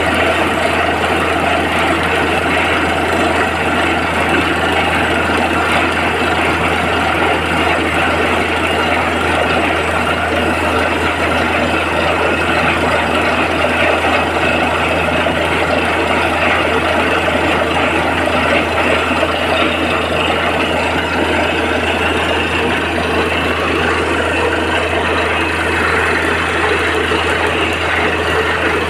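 Borewell drilling rig running steadily: a constant low engine drone under a dense mechanical rattle that holds without change.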